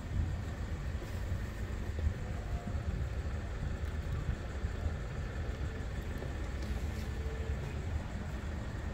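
Steady low background rumble of outdoor ambience, with no clear bird call.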